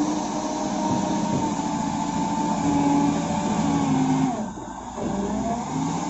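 Caterpillar wheel loader's diesel engine working under load as the bucket pushes into a gravel pile, its pitch rising and falling with the throttle. It eases off briefly about four and a half seconds in, then picks up again.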